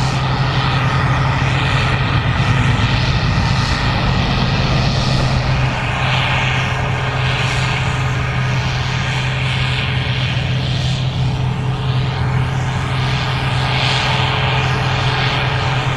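Gleaner R65 combine running while harvesting corn: a steady engine and machinery drone with a strong low hum.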